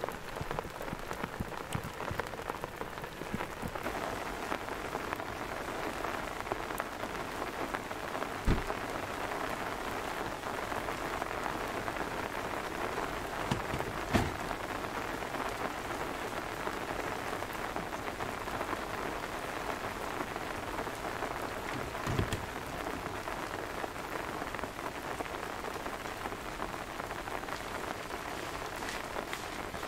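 Steady rain pattering on a surface, with three louder single taps spread through it.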